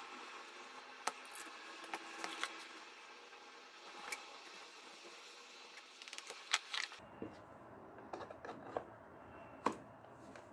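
Scattered light clicks and taps from hand tools and leather being handled on a cutting mat, over low room noise.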